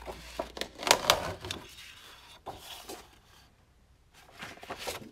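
Large sheets of heavy patterned scrapbook paper being slid across a cutting mat and lifted, in a few short rustles and flaps, the loudest about a second in.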